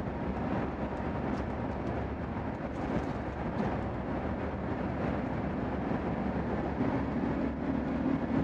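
Steady cabin noise of an Airbus A350-1000 climbing just after takeoff: a low drone of engines and rushing air heard from inside the cabin, with a slightly stronger low hum joining about seven seconds in.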